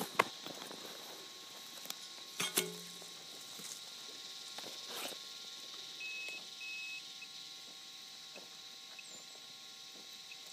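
A pick digging into the ground: one sharp strike just after the start and another about two and a half seconds in, then faint scraping and rustling in the soil and grass. Two short high beeps sound about six seconds in.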